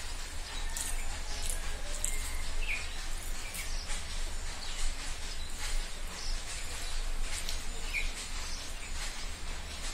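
Close-up eating sounds of rice and curry eaten by hand: irregular wet clicks and smacks of chewing, and fingers mixing rice on a steel plate, over a steady low hum. A couple of short high chirps come through, around a third of the way in and near the end.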